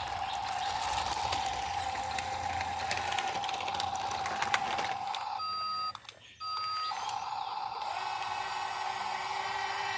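A radio-controlled construction model's small electric motor and gearbox whirring with a steady whine and clicks. About halfway through it gives way to two short electronic beeps.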